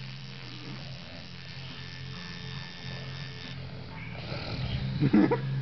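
Tattoo machine buzzing in runs, stopping briefly between passes. Near the end comes a louder, rough snore from the client, who is asleep under the needle.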